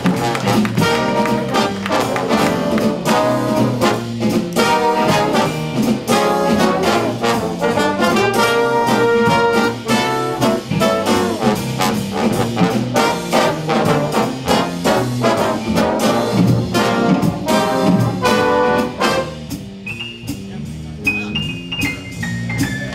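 Trombone-led jazz big band playing an up-tempo tune in full ensemble, with punchy brass chords over bass and drums. Near the end the horns drop out, leaving a quieter line of notes stepping down in pitch.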